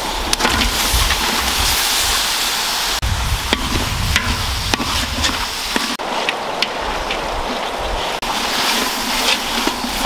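Lungs and offal sizzling in hot oil in a large iron wok over a wood fire, a steady hiss with scattered sharp pops and clicks.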